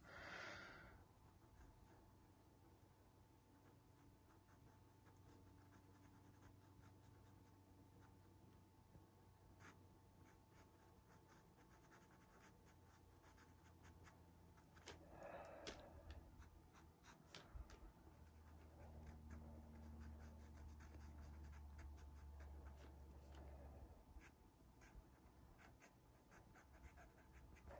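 Faint scratching of a pastel pencil on Pastelmat paper, many quick short strokes.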